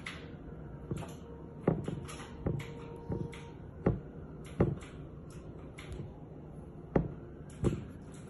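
Chicken drumstick being pressed and turned in flour in a glass baking dish, making a series of sharp knocks against the glass at irregular intervals, roughly one or two a second, over a steady low hum.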